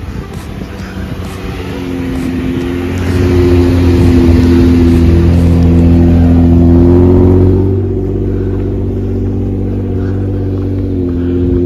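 Jeep Wrangler engine running under load off-road, getting louder about two to three seconds in, then easing back suddenly near eight seconds in.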